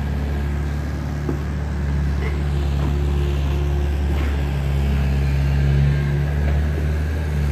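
A heavy engine running steadily with a low hum. About four seconds in, its pitch shifts as the load changes.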